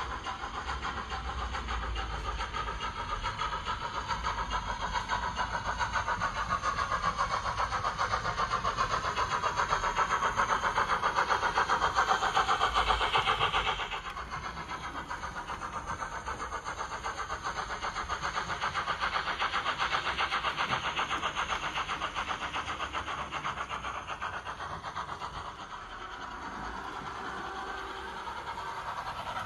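Recorded Jubilee class steam locomotive sound played by an ESU LokSound decoder through a model locomotive's small onboard speaker: a fast, even run of exhaust chuffs as the model moves. It gets louder up to about halfway, then drops suddenly and carries on at a lower level.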